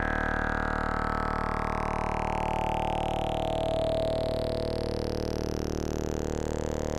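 Electronic synthesizer drone: a stack of steady low tones under gliding tones that sweep down through the first half and then up and back down, with a fast, even pulsing throughout.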